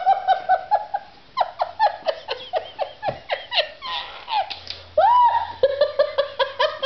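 A woman laughing hard in quick, high-pitched bursts, giggling breathlessly.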